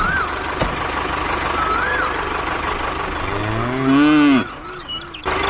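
A cow moos once, about three seconds in: one long call that rises and then falls in pitch. A steady hum of background noise runs under it.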